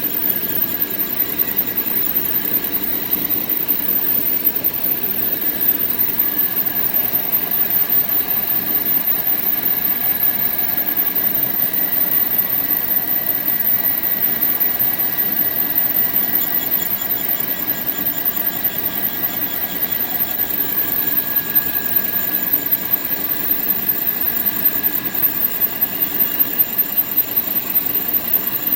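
Surface grinder running: a steady hiss with a few high, steady whining tones from the motor and spinning grinding wheel. Near the end the loudness starts to pulse evenly.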